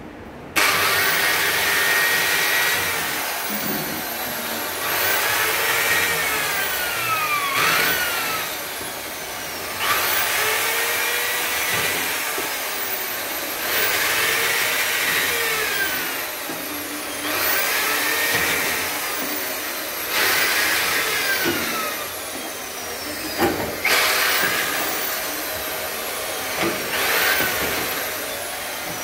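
Corded electric drill boring holes into a kitchen cabinet's back panel to treat it for termites. The drill starts about half a second in and runs in repeated bursts a few seconds apart, its whine rising and falling in pitch within each burst.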